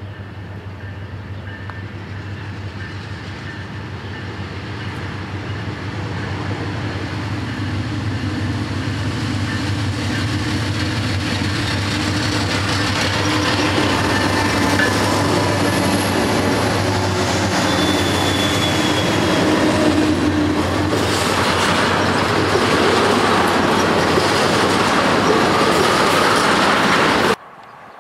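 Norfolk Southern diesel freight locomotives approaching and passing close by, their engines a steady low drone that grows steadily louder, then wheels clattering over the rails as the locomotives and cars go past. The sound stops abruptly near the end.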